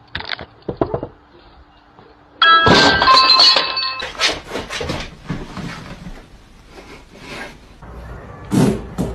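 A sudden loud crash about two and a half seconds in, with a bright ringing clatter for about a second and a half, like hard objects falling and breaking, followed by scattered clinks and knocks.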